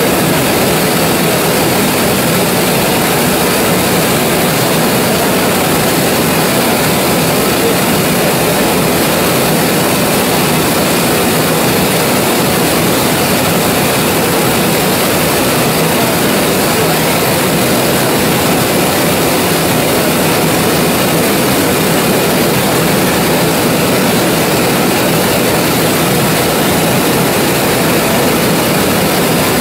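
1925 Gardner 4T5 four-cylinder oil engine running steadily at an even speed, loud and unchanging.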